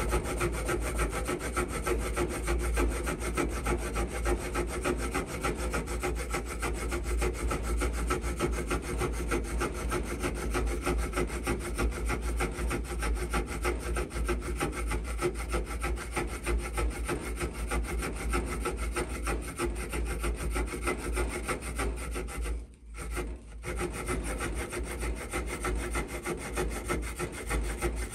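Small pocket-knife saw blade (Mikov Stovka 100-NH-7A) cutting through a dry wooden branch clamped in a vise, rapid back-and-forth strokes with a steady rasping, stopping briefly about 23 seconds in before going on. The blade is cutting well.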